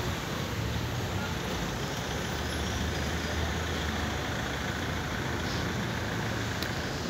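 Steady road traffic noise: a constant low engine rumble under an even hiss, without distinct events.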